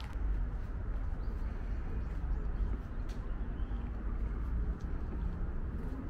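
Outdoor park ambience while walking: a steady low rumble, with a few faint bird chirps.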